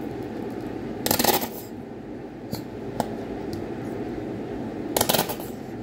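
Steady hum of a kitchen extractor hood fan, with two short bursts of rustling noise about four seconds apart and a few light clicks as sauce ingredients and containers are handled.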